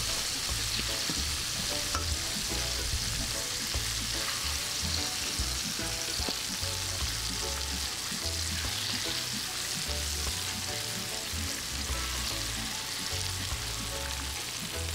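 Chicken frying in a pot of hot oil: a steady, dense sizzle.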